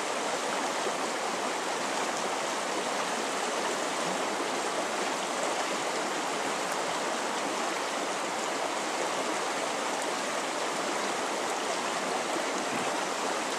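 Shallow river running steadily over a gravel and cobble bed, an even rushing of water through a riffle.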